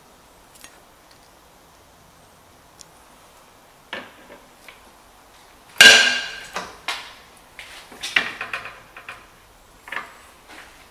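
Steel sheet-metal bending machine worked on a small sheet-metal part: a single knock about four seconds in, then a sharp metallic clang that rings briefly, followed by a run of lighter metal clinks and knocks as the clamp and bending leaf are handled.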